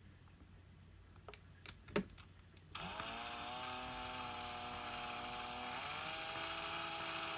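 A few light clicks of handling, then a small electric drill spins up about three seconds in and runs at a steady speed, with a thin high whine over its motor note, drilling the mounting holes in an RC car's plastic body shell.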